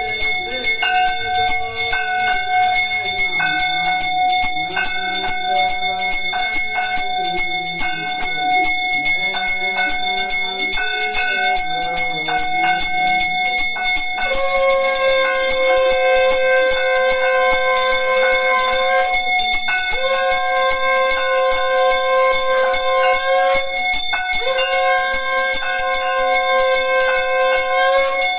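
Brass hand bell (ghanti) rung continuously during a Hindu aarti. About halfway in, a conch shell (shankh) joins, blown in three long steady blasts of about four seconds each, with short breaks between.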